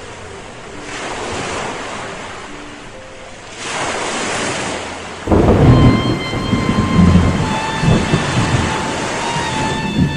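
Sea-storm sound effects: surging washes of ocean waves, then about five seconds in a loud, low thunder-like rumble breaks in, with a few held high tones over it.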